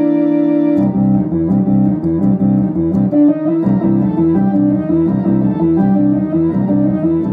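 Philips Philicorda electronic organ played with both hands: a held chord that starts suddenly, then from about a second in a rhythmic bass-and-chord accompaniment with a melody over it.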